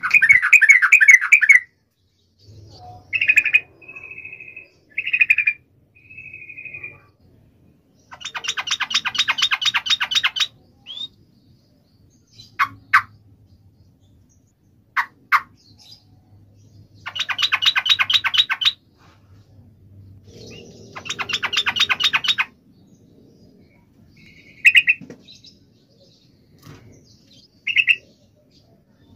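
Yellow-vented bulbul singing in loud, repeated outbursts. It gives short bubbly phrases and several rapid, rattling chatters of about two seconds each, with single sharp notes in between.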